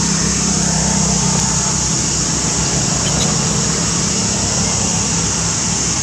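Steady outdoor background noise: a continuous high hiss over a low hum, unchanging and with no distinct events.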